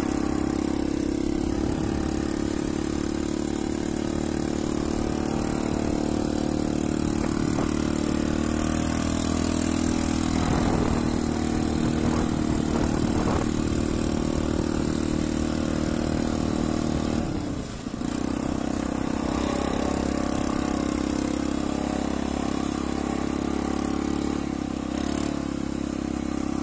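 Yamaha ATV (quad bike) engine running steadily as it pulls away and is ridden under throttle. The engine sound drops briefly about two-thirds of the way through, then picks up again.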